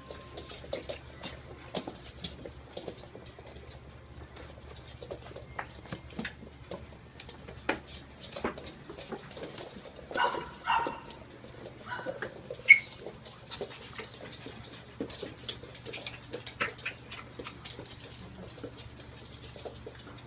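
Puppies playing: scattered clicks and taps of paws and claws on the floor, with a few short high-pitched puppy yips and whines about ten seconds in and one sharp squeak a little later.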